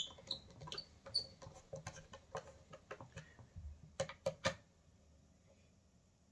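Hand screwdriver driving the neck screws of a bolt-on electric guitar neck into the wood through the metal neck plate: a few short high squeaks at first, then scattered clicks, with three sharper clicks about four seconds in. The screws are being tightened progressively in a cross pattern.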